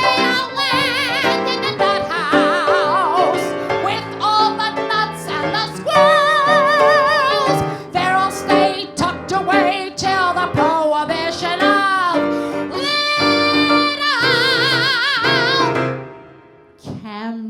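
A woman singing a comic song in an exaggerated operatic style over piano accompaniment. Her long held notes carry a wide vibrato, and the song ends about 16 seconds in.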